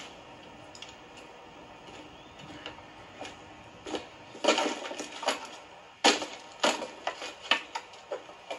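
Wooden sticks and branches being handled and knocked together, a string of sharp cracks and rustles that starts about four seconds in.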